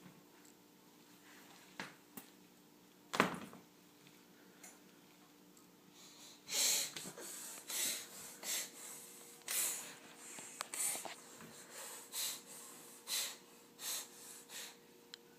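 A baby making a run of short, breathy noises, roughly one a second, after a single louder noise about three seconds in.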